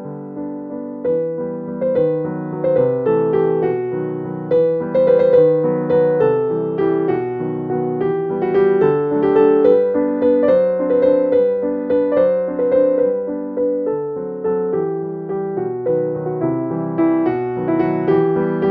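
Background piano music: a gentle tune of struck notes that ring and fade.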